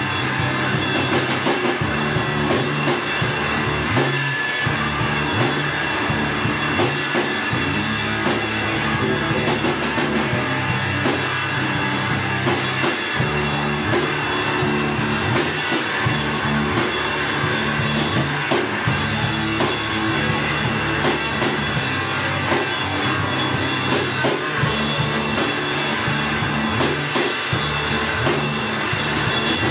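Live rock band playing loud and steady: a drum kit with frequent cymbal and drum hits, and a guitar, with no break.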